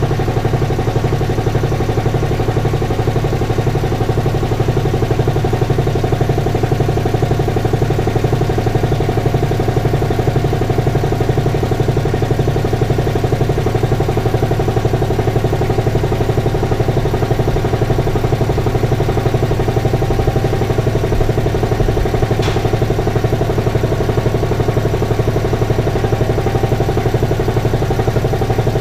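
Belt-driven Speedaire piston air compressor, freshly rebuilt with a new connecting rod and rings, running steadily as it pumps up its tank, with a fast even pulsing from the pump strokes. A single short click sounds about two-thirds of the way through.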